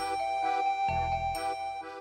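Background music: a light, chiming melody with bell-like notes over a bass note that returns about once a second.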